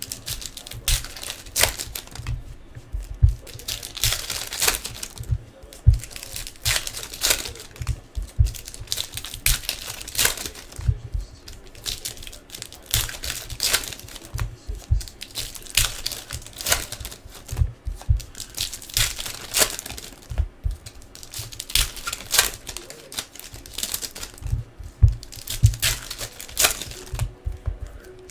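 Plastic card-pack wrappers crinkling and tearing as a hobby box of basketball trading card packs is opened, in quick irregular rustles and crackles.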